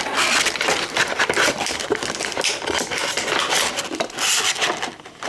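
Plastic and cardboard toy packaging being handled and opened: a busy run of crinkling, scraping and small clicks.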